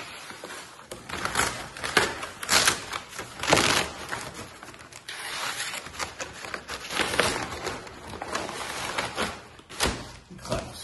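Corrugated cardboard packaging being cut with a box cutter and torn and pulled open, in irregular rustling scrapes. A sharp knock near the end as the wooden block inside is handled.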